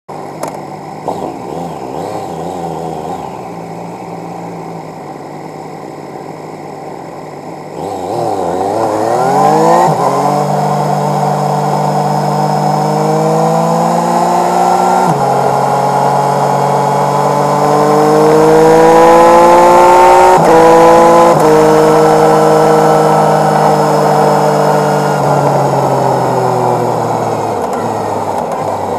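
Motorcycle engine heard from an onboard camera, running steadily, then accelerating from about 8 seconds in with the pitch climbing and dropping at gear changes, and easing off with a slowly falling pitch near the end.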